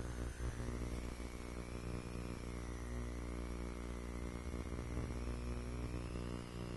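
The twin electric motors and propellers of a TwinStar II RC plane running steadily in flight, heard from on board as a low hum, with a higher whine that wavers and climbs towards the end.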